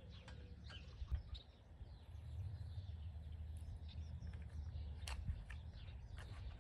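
Faint, scattered metal clicks of a spark plug socket being turned by hand, unscrewing the plug from a Honda lawnmower engine's cylinder head, over a low steady rumble.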